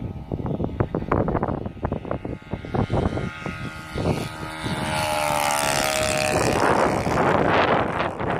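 The twin-cylinder four-stroke nitro engine of a large RC Piper Cub model flying past, its drone coming through clearly about halfway in with a slowly sinking pitch, under heavy wind buffeting on the microphone.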